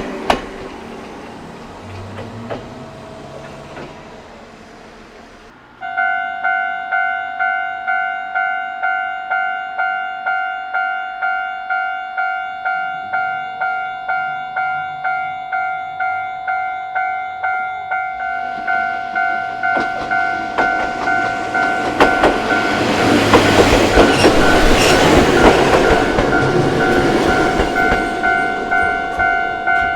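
Japanese railway crossing bell starts ringing about six seconds in, a steady single-pitched electronic strike repeating a little over once a second. Partway through, a Chōshi Electric Railway train rolls over the crossing, its rumble and wheel clacks building to the loudest part near the end while the bell keeps ringing.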